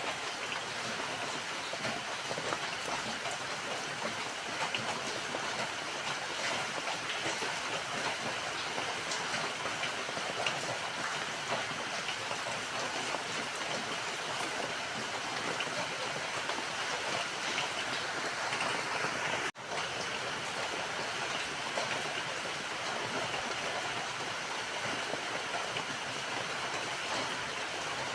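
Steady rain falling, an even hiss flecked with many small drop impacts. The sound cuts out for a split second about two-thirds of the way through.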